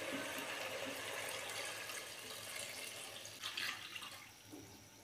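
Water poured from a jug into a pot of browned mutton, a steady splashing pour that thins out and fades in the last second or so.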